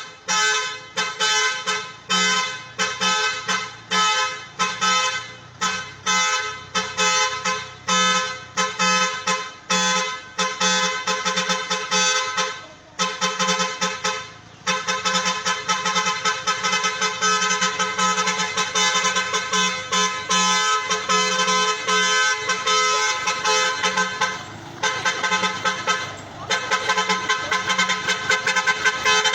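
Large 4-foot vehicle air horns blown in a rhythmic pattern: even repeated blasts about one and a half a second for some twelve seconds, then a faster, denser run of toots with a few short breaks.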